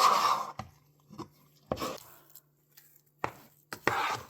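A spoon knocking and scraping against a pot in irregular strokes as stiff, clay-like instant plantain fufu dough is stirred and worked.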